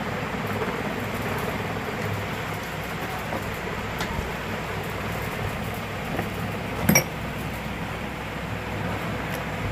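Steady mechanical hum, with one sharp knock about seven seconds in.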